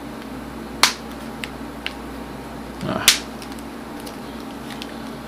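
Plastic battery cover of a Samsung Galaxy Nexus being pressed onto the back of the phone, its clips snapping into place: two sharp clicks, one about a second in and one about three seconds in, with a few faint ticks between.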